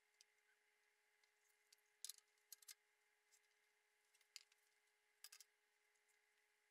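Near silence, broken by a few faint, sharp clicks and taps in small clusters: a wooden bowl and lathe fittings being handled while the bowl is reverse-mounted. A faint steady high hum runs underneath.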